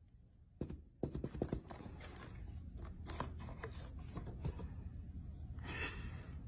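Cardboard box scratched and scraped from inside by a cat pawing at a cut flap: a run of sharp scratchy clicks and rustles starting about half a second in, with a short rasping scrape near the end.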